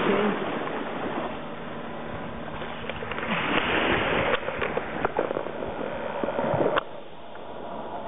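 Small sea waves washing and lapping on a stony shore, swelling about three seconds in. A few sharp clicks sound over it, the last and loudest about seven seconds in, after which the wash is quieter.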